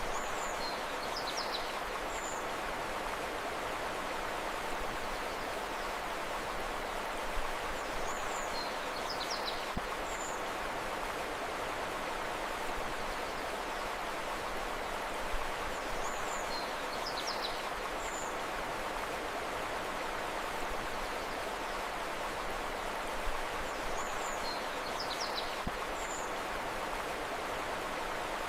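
Steady rushing of flowing river water, with a short phrase of a few high bird chirps recurring about every eight seconds, four times.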